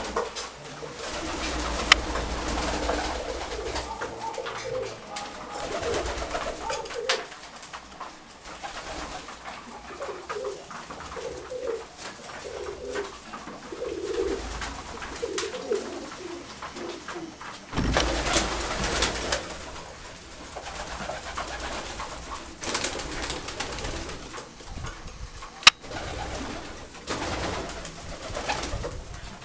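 Domestic fancy pigeons (Saxon breeds) cooing in a loft, in repeated pulsing calls. A louder burst of noise comes a little past the middle, with a couple of sharp clicks.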